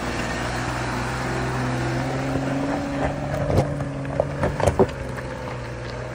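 Off-road vehicle engine running steadily at low speed, with several sharp knocks from about three and a half to five seconds in.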